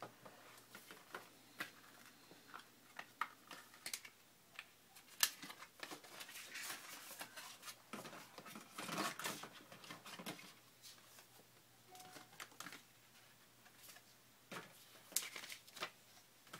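Hands handling an iPad 2 box and its packaging: scattered light taps and clicks of cardboard, with longer spells of paper and plastic rustling about six and nine seconds in.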